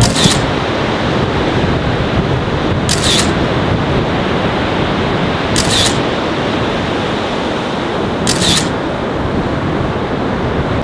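Camera shutter firing four times, about every two and a half to three seconds, over a steady rush of breaking surf.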